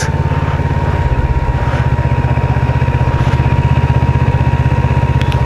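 Motorcycle engine of a Kawasaki Versys 650, a parallel twin, running steadily at low revs with an even, rapid beat of exhaust pulses.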